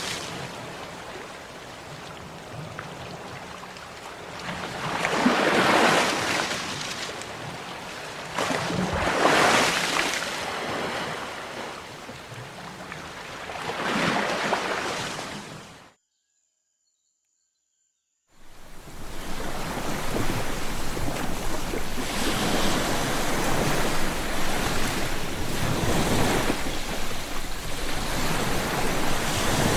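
Sea waves breaking and washing on the shore, swelling in surges every four seconds or so. About halfway through, the sound cuts out completely for about two seconds, then returns as a denser, more continuous surf.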